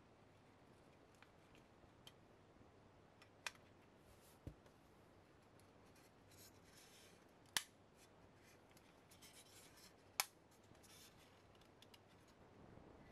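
Plastic scale-model car parts being handled in near silence: a few sharp plastic clicks, the two loudest a little after halfway and near the end, a duller knock between them, and faint rubbing of fingers on the plastic chassis.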